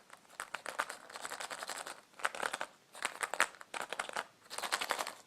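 Plastic crinkling and crackling in several bursts with short pauses, from handling crinkly plastic such as wrapping or Easter basket grass.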